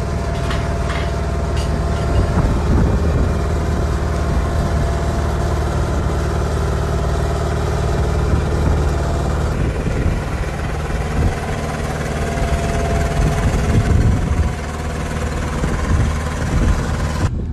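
An engine running steadily with a constant low hum, with a few sharp clicks about a second in.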